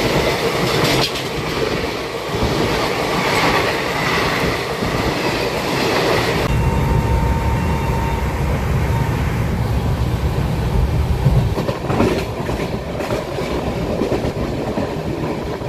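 Passenger train of the Saraighat Express running along the track: steady wheel-on-rail rumble and rushing noise with clickety-clack. About six seconds in the sound turns to a deeper, heavier rumble.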